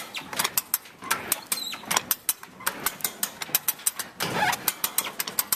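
A hand-operated cable come-along being ratcheted under heavy load as it winches a big log along, its pawl clicking rapidly and unevenly, several clicks a second. There is a brief rasp about four seconds in.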